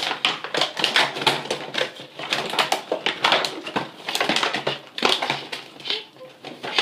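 Plastic clamps and their packaging being handled: a busy run of quick clicks, clatters and crinkles.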